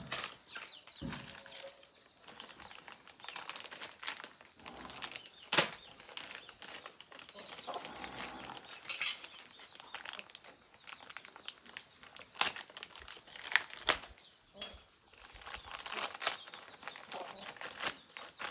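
Scattered clicks, knocks and metallic clinks of hand tools and parts being handled during motorcycle rear-brake work, with one short high metallic ring about 15 seconds in.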